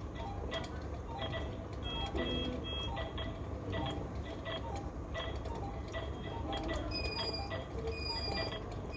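Electronic beeping over a low steady hum: three short high beeps about two seconds in, then from about seven seconds a two-tone beep repeating about once a second.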